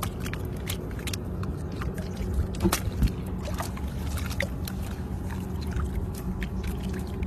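Small splashes and clicks of shallow seawater and netting as milkfish are worked free of a gill net by hand, a few louder ones about two and a half to three seconds in, over a steady low rumble.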